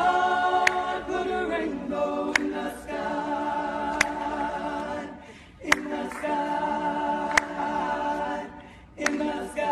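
A cappella choir singing held gospel-style chords in long phrases, with a sharp click about every second and a half keeping time.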